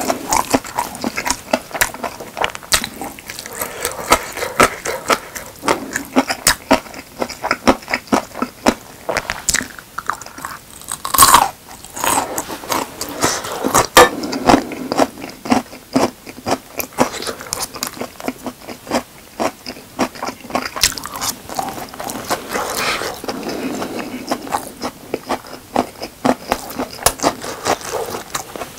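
A person chewing and biting food close to a lapel microphone, eating a Chungmu gimbap meal with its spicy squid side dish. The sound is a steady run of wet mouth sounds and sharp clicks, with one louder click just before the middle.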